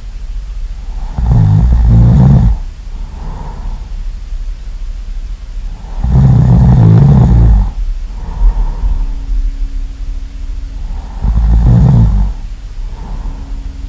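Loud snoring from a sleeping person: three long, rumbling snores about five seconds apart, each followed by a softer breath.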